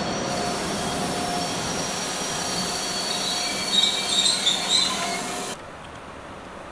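ÖBB passenger coaches rolling past on the rails, their wheels squealing with thin high tones, rising to a burst of loud high-pitched screeches about four seconds in. The sound cuts off abruptly about five and a half seconds in, leaving a much quieter background.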